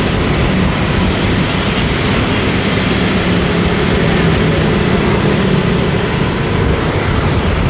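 Motorcycle engine running steadily while riding at road speed, with a constant rumble of road and wind noise on the microphone.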